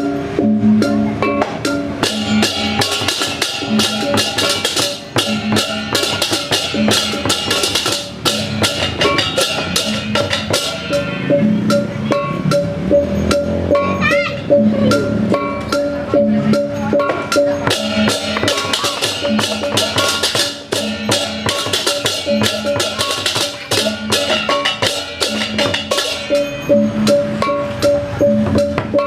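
Balinese gamelan accompanying a barong, playing fast and without a break: drums, a rapid wash of small clashing cymbals and steady ringing gong and metallophone tones.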